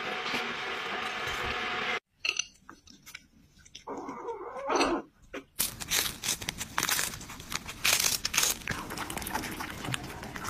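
Cats eating, in a few short clips: from a little past halfway, dense irregular crunching and chewing as a cat gnaws on a dried fish, with a quieter stretch before it.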